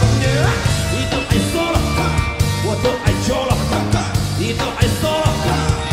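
Live rock band playing, with electric bass and drums under a lead melody that slides in pitch.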